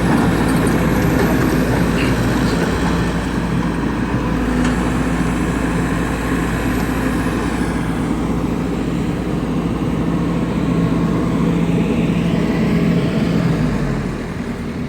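Heavy machinery's engine running steadily under load, a low, even drone that eases off about a second before the end.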